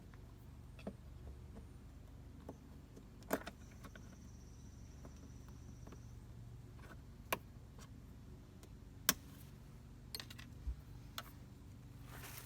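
Scattered sharp clicks and light metallic taps from handling an RV compartment door's gas lift strut and its end fittings, over a steady low hum.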